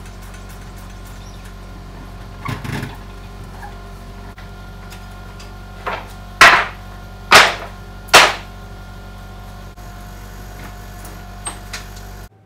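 Wooden boards knocking and clattering as they are handled and dropped onto a scrap pile on a concrete floor, with three loud wooden clacks a little under a second apart in the middle, over a steady hum.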